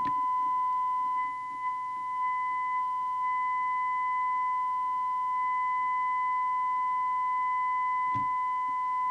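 Amstrad CB901 CB radio's loudspeaker sounding a steady, pure test tone: the demodulated modulation of a 100 microvolt signal-generator signal, heard while the receiver's FM detector coil is being tuned. The tone dips briefly in level about a second in.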